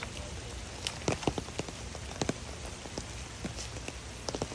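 Rain falling, a steady hiss with irregular drops ticking sharply on nearby surfaces.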